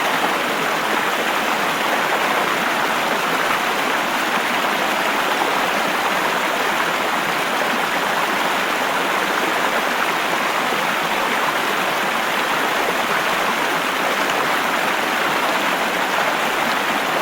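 Flowing stream water rushing steadily, an even, unbroken sound.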